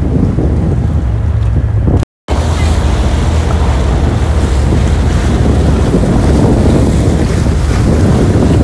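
Fishing boat running at speed: wind buffeting the microphone and water rushing and splashing along the hull over a steady low rumble. The sound cuts out for a moment about two seconds in.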